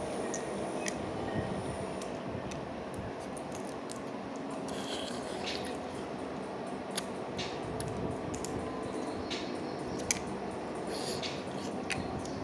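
Close-up eating sounds of cooked crab being picked apart and eaten by hand: scattered small clicks and crackles of shell, with wet sucking and chewing, over steady background noise.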